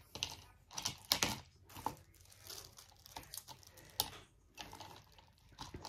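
Small plastic diamond-painting tools and a divider being handled in a plastic tray: irregular light clicks and knocks, with some crinkling of plastic packaging.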